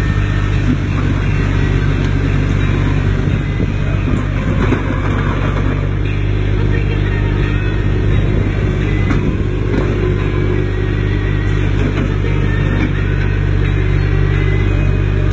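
Komatsu PC10-5 mini excavator's diesel engine running steadily with a constant low hum.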